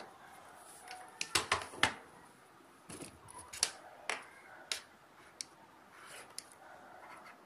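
Sharp plastic clicks and taps from a phone charger and its USB cable being handled and fitted, with a quick cluster of loud clicks about one and a half seconds in and single clicks every half second or so after.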